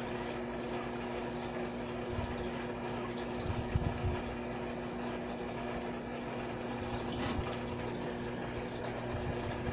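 Small water pump running: a steady hum with an even hiss underneath. A few soft low thumps come about three and a half to four seconds in, and again just past seven seconds.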